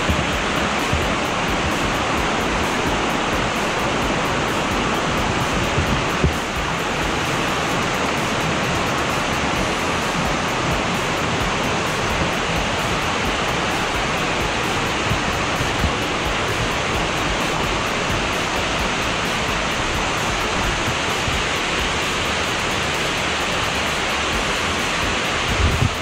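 Waterfall cascading in several strands over rocks into a shallow pool: a steady, even rush of falling water.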